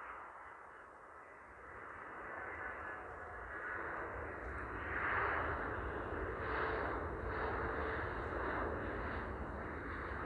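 Jet engines of an Airbus A320neo on its landing roll, heard from a distance as a steady rushing noise. About five seconds in it swells and then pulses unevenly, as engine noise does when the engines spool up for reverse thrust after touchdown.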